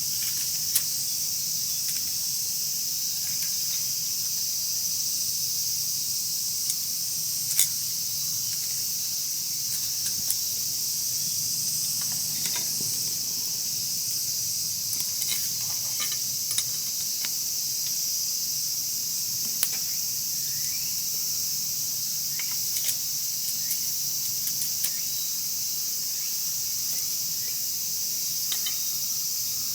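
Wood fire crackling, with scattered sharp pops every few seconds, over a steady high-pitched chorus of crickets and other late-summer insects.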